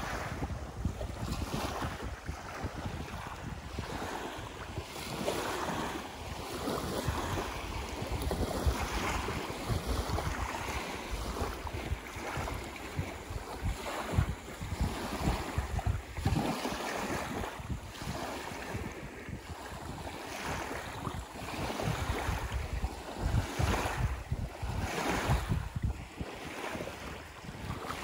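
Small lake waves lapping and washing onto a beach, rising and falling in irregular swells, with wind buffeting the microphone as a low rumble.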